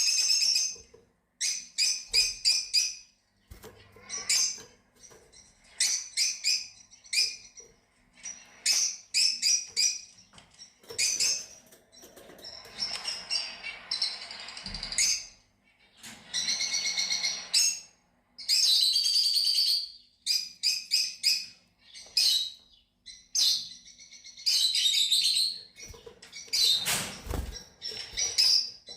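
Fischer's lovebirds chirping and twittering in short, rapid bouts of high calls, about one bout a second. Near the end comes a louder, deeper burst.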